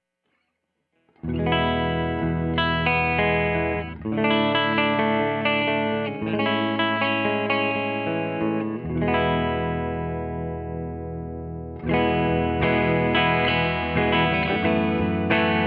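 1988 Kramer Night Swan electric guitar played through a Tone King Imperial MK 2 tube amp on a clean tone pushed a bit hot, with slight breakup. Chords and notes are struck and left to ring, starting about a second in, with a fresh strong attack near the end.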